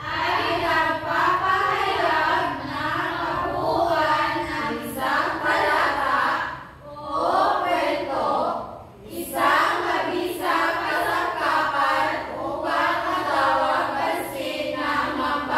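A class of students' voices together in unison, with two short breaks about 7 and 9 seconds in.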